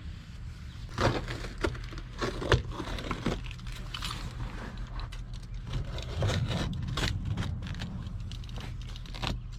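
Irregular knocks, scrapes and rustling as old floor carpet is pulled up and handled inside a car, with several sharp clacks scattered through.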